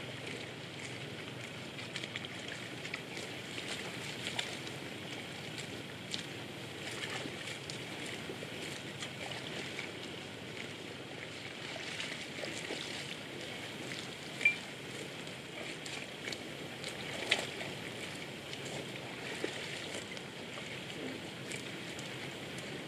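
Steady outdoor hiss with scattered short clicks and snaps from water buffalo grazing and chewing, two sharper snaps a little past the middle.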